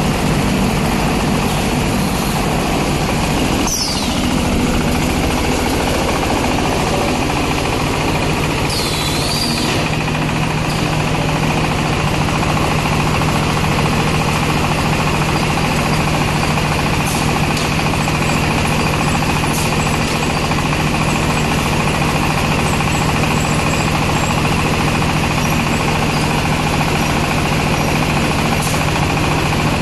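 Diesel-powered silage baler running steadily, its engine's rapid chugging over a dense mechanical din, with brief high squeaks about four and nine seconds in.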